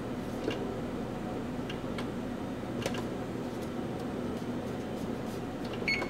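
Electric range's touch control panel: faint clicks as keys are pressed to set a 30-minute timer, and one short high key beep near the end. Under it runs a steady low hum.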